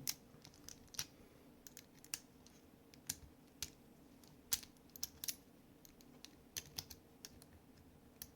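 Irregular small, sharp clicks of metal parts of a Sig P320 fire control unit (trigger bar, spring and housing) being handled and worked back into the housing.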